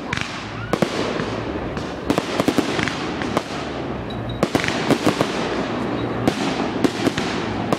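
Large fireworks display: a rapid, irregular string of sharp bangs from bursting shells over a continuous crackling hiss.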